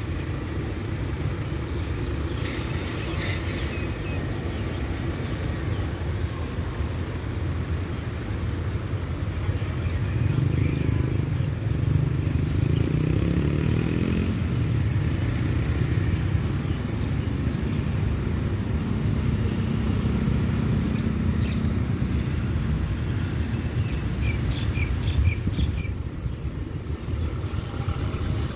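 Steady outdoor rumble of road traffic and wind, with an engine rising in pitch as a vehicle accelerates about ten seconds in. A short hiss sounds about three seconds in.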